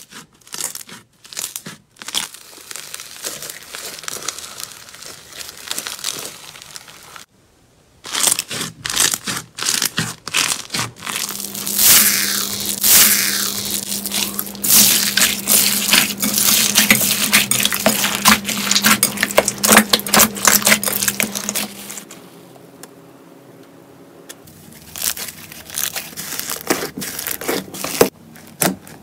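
Hands squeezing and poking crunchy bead slime and foam-bead slime (floam): a dense run of crackling, popping clicks, broken by short quieter gaps between clips. A steady low hum runs under the middle stretch.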